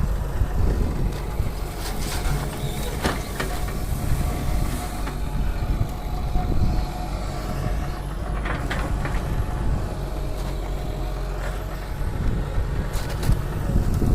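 Excavator's diesel engine running steadily with a heavy low rumble while loading stone into a dumper truck, with a few sharp knocks of stone striking metal, about two seconds in, near the middle and near the end.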